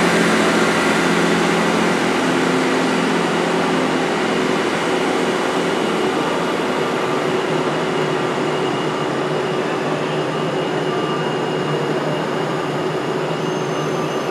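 Class 158 diesel multiple unit running along the platform tracks: a steady engine drone with rail noise, slowly fading as the train draws away.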